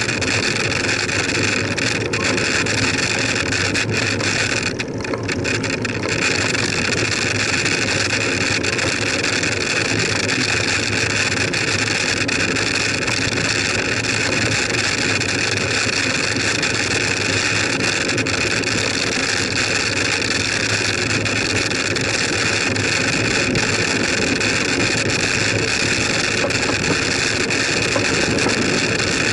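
Steady wind and tyre noise picked up by a camera riding on a moving bicycle on a tarmac road, briefly easing about five seconds in.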